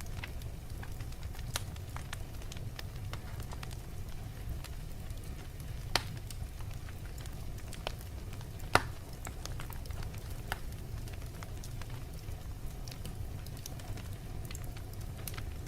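Fireplace fire crackling, with a steady low rumble and scattered sharp pops, two of them louder about six and nine seconds in.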